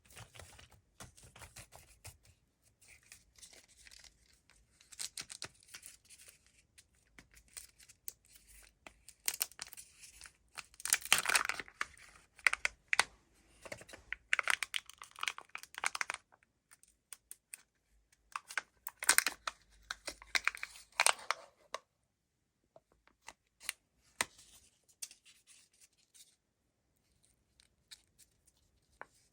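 Wrapper of a Kinder surprise chocolate egg being torn open and crinkled by hand, in irregular spells. It is loudest around eleven and twenty seconds in, then thins to scattered small clicks near the end.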